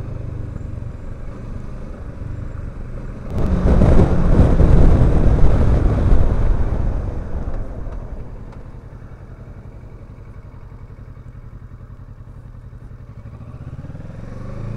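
Kawasaki Versys 650's parallel-twin engine running on the move. A loud rushing noise swells in a few seconds in and lasts about four seconds. Then the engine note settles quieter and steady, and rises in pitch near the end as the bike speeds up.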